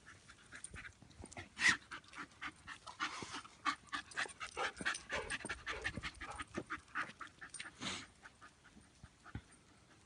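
A dog panting close by in a quick, irregular run of short breaths, with a louder knock about a second and a half in and another near the end.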